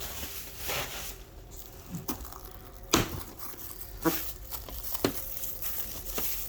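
Bubble-wrap sleeve and plastic packaging crinkling as they are handled, with a few sharp plastic clicks about a second apart.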